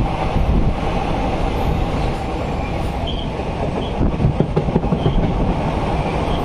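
Passenger train running along the track: a steady rumble of wheels on rails, with a run of clicks over the rail joints about four seconds in and a few brief faint high squeaks from the wheels.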